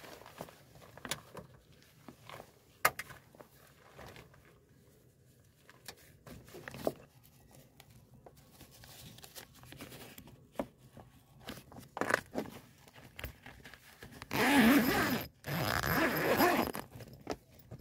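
Zipper on a zip-on tailgate screen with a clear urethane window, pulled in two long strokes about two-thirds of the way in. Before that come scattered light clicks and handling noises as the screen is fitted.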